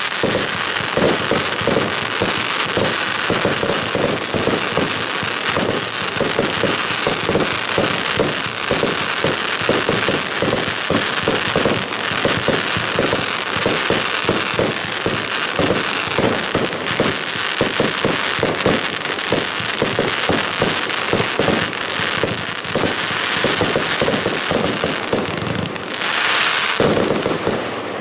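A 100-shot 25 mm consumer firework battery (cake) firing in rapid succession, several shots a second, the launches and shell bursts running together over a steady hiss. A louder flurry comes near the end.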